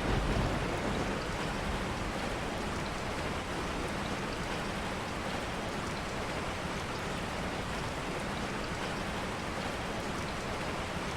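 Steady rain falling, a soft even hiss of drops with no other sounds.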